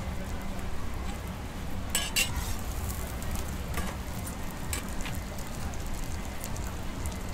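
Scallion pancake sizzling in hot oil in a round pan over a steady low hum, with a metal spatula clicking and scraping against the pan a few times, the sharpest strokes about two seconds in.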